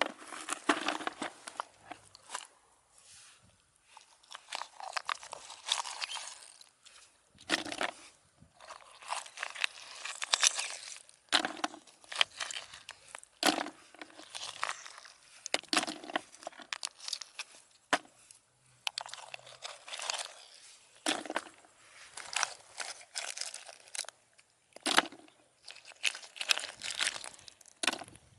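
Irregular crunching and rustling that comes and goes in short bursts, with a few sharp clicks.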